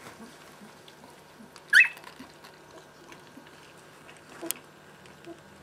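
A two-week-old Siberian husky puppy gives one short, high squeal about two seconds in, among faint shuffling of small paws. A sharp click comes near the end.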